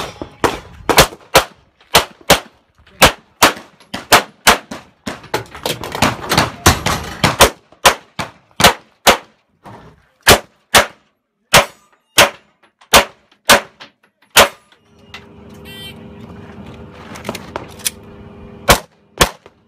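Quick strings of pistol shots, dozens in all, fired in competition stages, with short pauses between strings and some hits ringing on steel plate targets. A steady low hum runs under the shots for a few seconds near the end.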